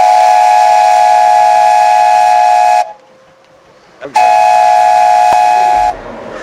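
Steam launch's whistle blowing its departure signal: two long, loud, steady blasts, the second shorter, with a pause of about a second between them.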